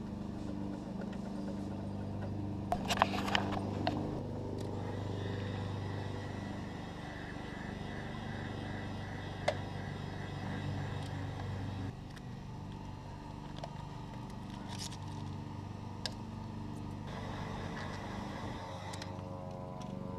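Handheld electric heat gun running with a steady hum, used to soften vinyl decals so they can be peeled off. A cluster of sharp clicks and scraping comes about three seconds in.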